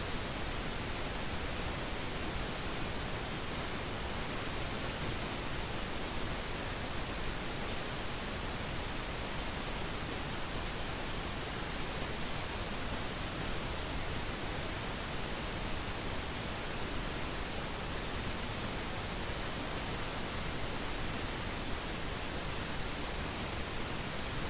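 Steady, even hiss with no distinct events: recording noise.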